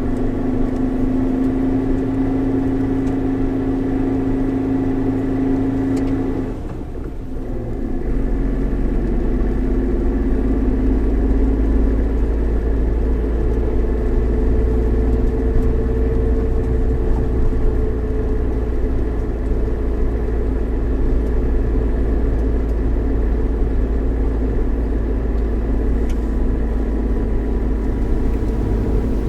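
Suzuki Jimny JB64's 660 cc turbocharged three-cylinder engine running as the car drives along, with a steady low rumble. About seven seconds in the engine note drops away briefly, then comes back lower.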